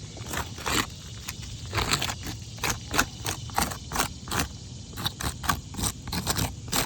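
Short, irregular scraping strokes, a few a second, of a marker dragged across the gritty granules of an asphalt shingle to mark it for removal.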